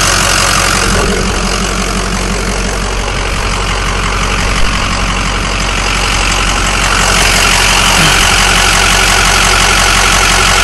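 Ford 6.0L Power Stroke V8 turbodiesel idling steadily, heard close up in the engine bay, with a single short thump about halfway through.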